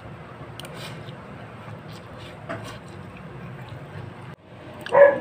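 A few faint clicks of a spoon and fork against a plate while someone eats, over a steady low hum.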